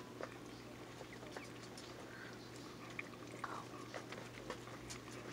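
Mother dog licking and mouthing a newborn puppy, a run of faint wet licking and chewing clicks, with a few short, thin squeaks from the newborn puppies about halfway through.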